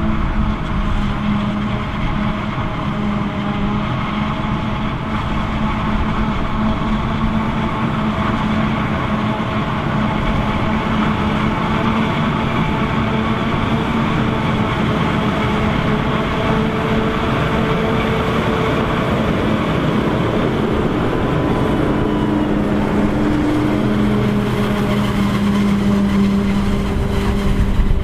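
Self-propelled forage harvester chopping maize and blowing it into a silage trailer, with the diesel engines of the harvester and a Case IH Optum tractor running steadily under load alongside.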